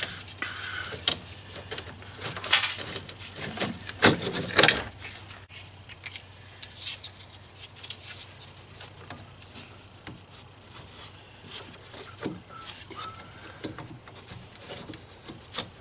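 Scattered clinks, knocks and rubbing of parts and tools being handled, with a cluster of louder knocks about two to five seconds in.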